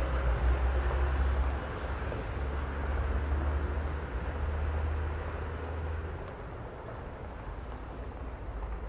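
Street traffic: a vehicle's low engine rumble passes close by, fading after about six seconds, over a steady wash of road noise.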